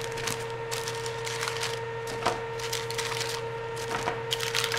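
Plastic zip-top freezer bag crinkling and rustling as frozen garlic knots are handled into it, a string of irregular soft rustles and light clicks over a steady hum.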